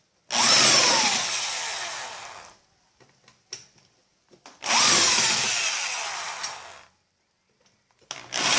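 Electric drill-driver backing out the screws that hold a washing machine's actuator. It runs in two bursts of about two seconds each, each with its pitch falling and its sound fading, and a third burst begins near the end. Light clicks come between the bursts.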